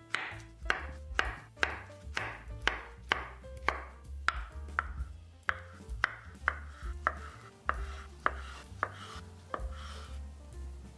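Kitchen knife slicing peeled bananas into thick rounds on a wooden cutting board: a steady series of cuts, each ending in a sharp knock of the blade on the board, about two a second.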